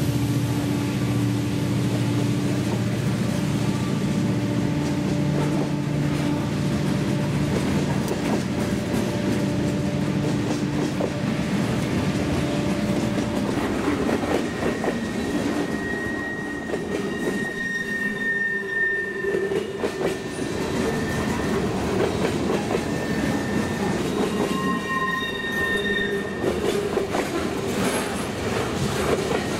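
Freight train of open-top coal cars rolling past, with a steady heavy rumble and clatter of wheels on the rails. About halfway through, high drawn-out wheel squeal comes and goes over several seconds at a time.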